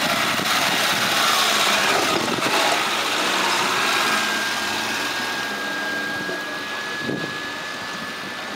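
Suzuki Samurai's engine running at low revs as the 4x4 crawls past close by, louder as it passes and then fading as it pulls away.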